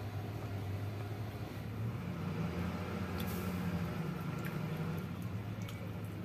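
Steady low hum of an idling vehicle engine, heard from inside the cab, with a few faint clicks from a plastic bag and bread being handled.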